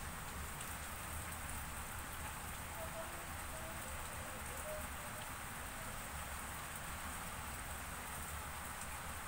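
Steady background hiss with a low hum underneath.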